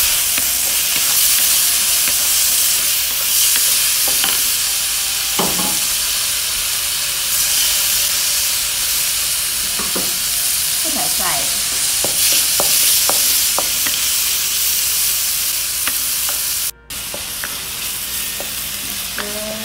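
Diced pork, vegetables and raw shrimp sizzling steadily in a hot steel wok, with a wooden spatula scraping and stirring now and then. The sound cuts out for a moment near the end.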